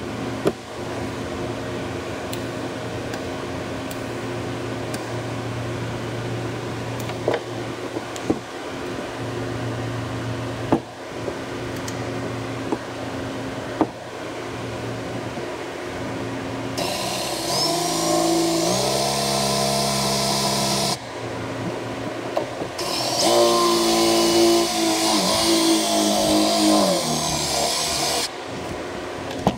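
A steady hum with a few sharp knocks, then, from about halfway, a cordless drill runs in two stretches of a few seconds each, its pitch changing in steps, as it drills into a fuel sending unit's base plate.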